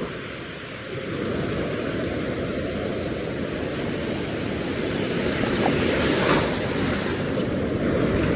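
Steady rush of surf on a beach, with wind buffeting the microphone; slightly louder around six seconds in.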